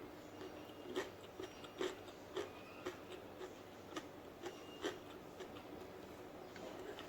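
Close-up chewing of crunchy food: a run of crisp crunches about every half second that stops about five seconds in.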